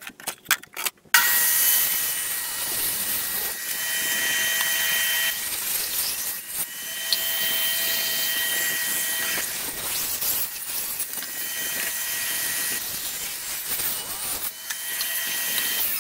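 Portable table saw cutting plywood: a few light knocks, then the saw's motor comes on abruptly about a second in and runs loud and steady. A whine in it comes and goes every few seconds as the blade works through the board.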